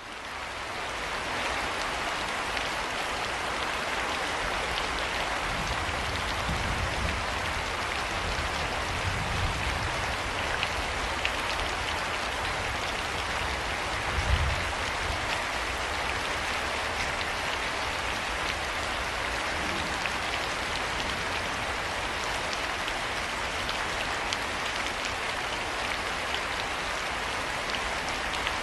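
Steady rain falling on surfaces, fading in over the first second, with scattered sharper drop ticks. A low rumble of thunder comes about six to ten seconds in, and a brief low thump about fourteen seconds in.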